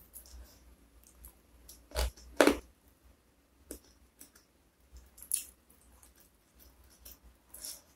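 Fingers picking through and pinching a pile of fried fish with sambal matah, giving a few scattered moist squishing and crackling sounds, the two loudest close together about two seconds in.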